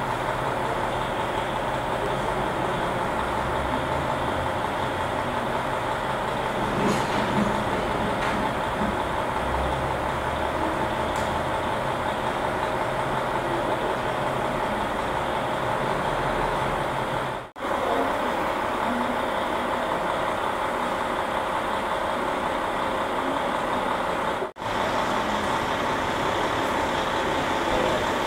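KiHa 40 diesel railcar standing with its engine idling: a steady mechanical hum with a low rumble. The sound cuts out for a moment twice, about two-thirds of the way in and again near the end.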